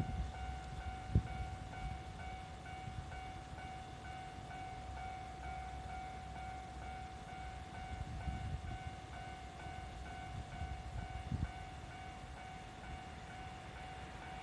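Japanese level-crossing warning bell ringing steadily, a repeated electronic ding at about two strokes a second. Under it runs the low rumble of a train on the crossing, with occasional wheel clacks over rail joints.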